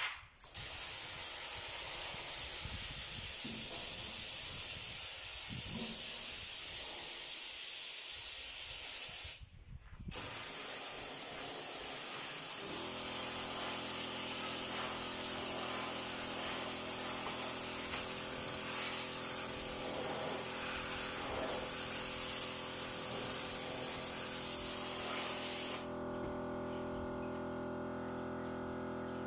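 Compressed-air spray gun hissing in long continuous bursts, released briefly twice and then cut off near the end. About halfway through, a steady hum joins underneath and carries on after the hiss stops.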